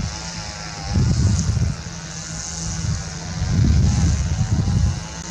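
Jet airliner engine noise: a steady high whine and wavering mid tones, with irregular low rumbling swells about a second in and again in the second half.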